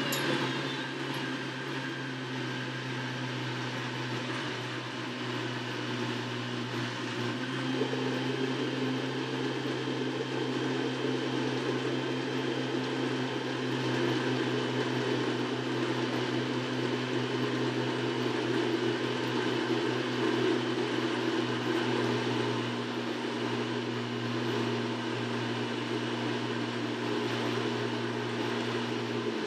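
Countertop blender running steadily, puréeing carrot ginger soup. Its motor hum shifts pitch once, about eight seconds in.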